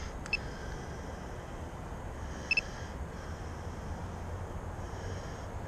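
A low, steady rumble with a faint high hiss that fades in and out. A short click comes just after the start, and a quick double beep about two and a half seconds in.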